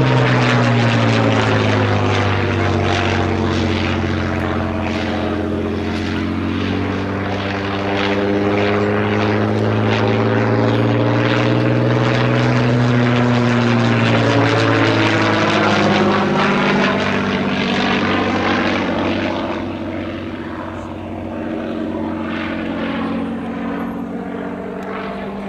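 Hawker Fury biplane's supercharged Rolls-Royce Kestrel V-12 engine and propeller running in flight overhead, the engine note sliding down and back up in pitch as the aircraft manoeuvres. It grows somewhat quieter about twenty seconds in.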